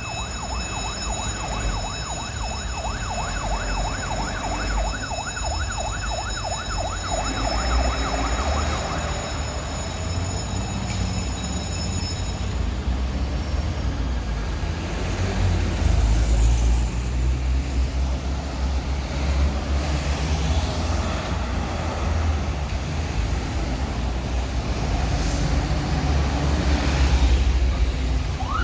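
A Hong Kong fire engine's siren sounding a fast warbling yelp, which fades away about nine seconds in. It leaves a steady low rumble of heavy vehicle engines.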